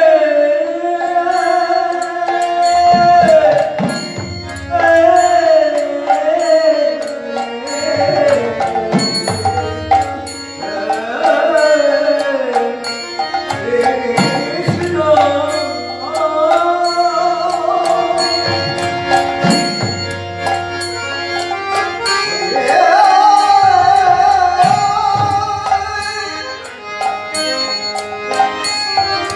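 Bengali devotional kirtan: a man sings a slow, ornamented melody over a steadily held harmonium, with deep khol drum strokes and a regular high ticking beat.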